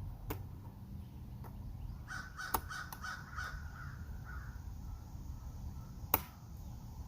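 A crow cawing several times in quick succession about two seconds in. Sharp clicks are heard near the start, during the calls, and a louder one near the end.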